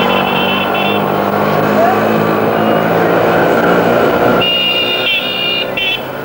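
Street traffic: motor engines running steadily, with two spells of shrill, high-pitched signal tones, one at the start and one about four and a half seconds in.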